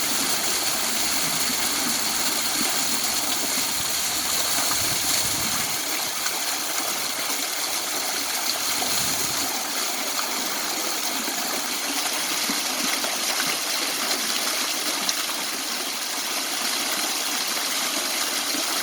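Waterfall water rushing steadily, an even hiss of falling water, with a low rumble underneath for the first few seconds that drops away.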